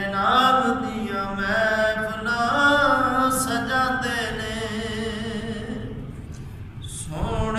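Unaccompanied naat: a man's voice singing a Punjabi devotional refrain in long, drawn-out, wavering notes. The phrase fades off about six seconds in, and the next line starts near the end.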